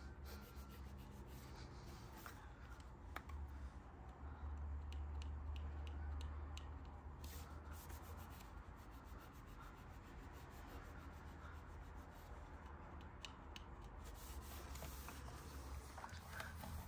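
Faint rubbing from a surface being scrubbed, with a few light clicks scattered through it.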